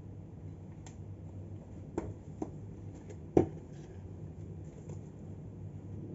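A few short, sharp clicks and taps from handling a bottle of chili ketchup while putting it on a sandwich, the loudest about three and a half seconds in, over a steady low room hum.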